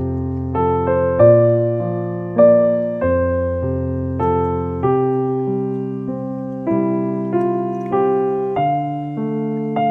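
Background music: a gentle piano melody, a new note or chord struck about every half second.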